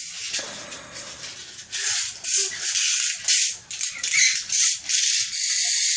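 Pull-back toy car's spring-motor gears whirring in short repeated strokes as it is wound back, then running on more steadily near the end.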